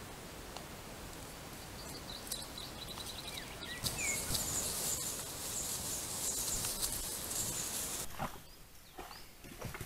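Outdoor trail-camera ambience: a steady hiss with a few short chirps, then from about four seconds in a dense, high-pitched chorus of night insects that cuts off suddenly near the end.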